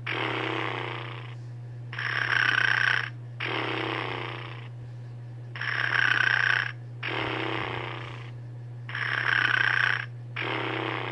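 Novelty toy dog playing a recorded snore: a louder rasping in-breath, then a softer, lower out-breath, repeating about every three and a half seconds, over a steady low hum.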